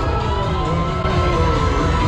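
Music playing, with a brief dip in level about a second in.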